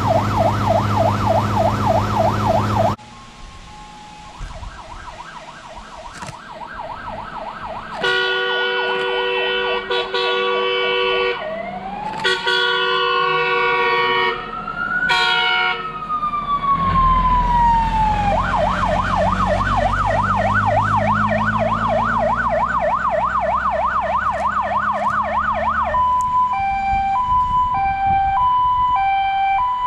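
Fire truck siren on a Star 200 fire engine, an Elfir Zura 1120 unit. It opens with a fast warble over cab engine hum, then comes fainter from a distance. It then sounds several steady horn blasts and a slow wail that rises and falls, with the truck's diesel engine rumbling as it passes, then the fast warble again, and it switches to a two-tone hi-lo near the end.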